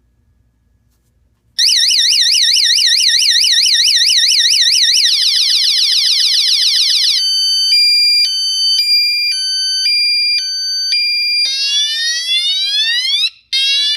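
A battery door-hanging alarm sounds its loud electronic siren about a second and a half in. It cycles through patterns: a fast warble, a faster warble, an alternating high-low two-tone, then rising sweeps. It cuts off suddenly shortly before the end, with one brief final burst.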